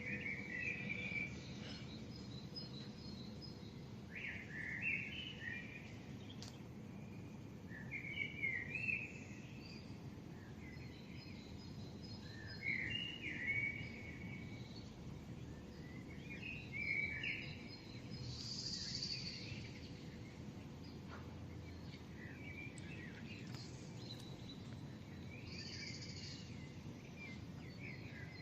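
Dawn birdsong: short chirping phrases every three to four seconds, with one higher phrase about two-thirds of the way through, over the steady low hum of a city.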